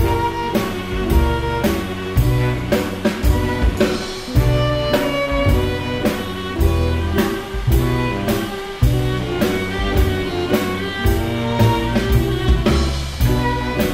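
Background music with a steady drum beat, about two hits a second, under held instrumental notes.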